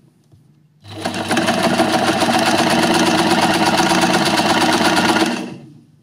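Electric sewing machine stitching at a steady high speed, a fast, even mechanical rattle of the needle. It starts about a second in and fades away near the end.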